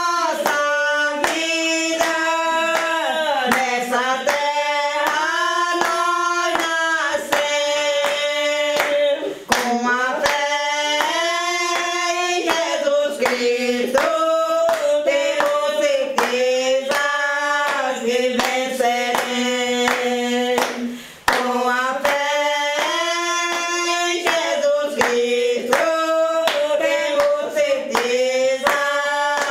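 People singing together with hand claps keeping a steady beat.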